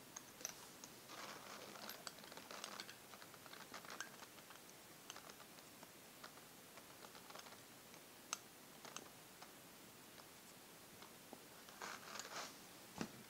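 Parker Sonnet fountain pen's nib scratching faintly across paper as it writes, with soft scattered ticks and taps. There is a brief light rustle near the end.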